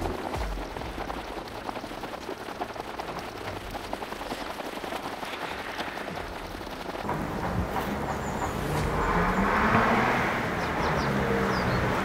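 Outdoor street ambience with a crackling rumble like wind buffeting the microphone. About halfway through, a vehicle engine's low hum comes in, rising and falling in pitch and getting louder before easing off near the end.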